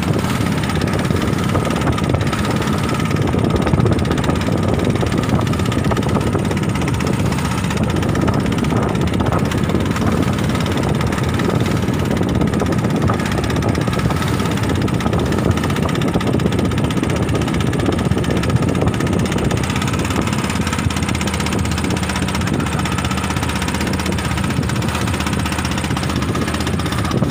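A boat's engine running steadily at low revs, with an even low drone and a thin steady tone above it.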